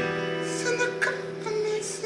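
Background music: a quieter passage with a held low note and a few short sung or played notes, between louder strummed-guitar sections.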